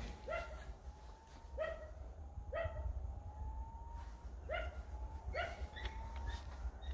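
A dog barking, about six short barks at uneven intervals.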